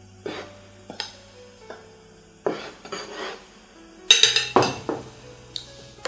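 A metal spoon tapping and scraping against a bowl and a plate: a string of separate clinks and knocks, the loudest cluster about four seconds in. Soft background music runs underneath.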